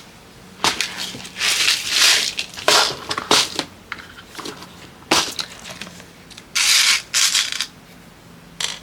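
Hands rummaging through containers of jewelry-making supplies: a series of short rustling, scraping handling noises in about six bursts with brief pauses between them.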